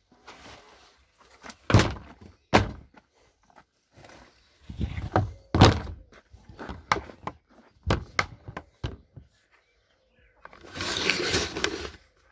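Thumps and knocks of a garden storage shed's doors being handled and shut, four loud hits among smaller clicks, then a rustling scrape for about a second and a half near the end.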